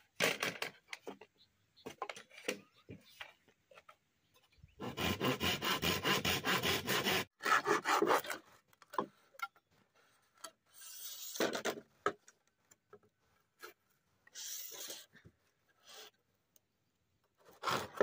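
Hand saw cutting across a bamboo pole in several bursts of quick back-and-forth strokes, the longest lasting a couple of seconds. Scattered knocks and clicks of bamboo being handled come between the bursts.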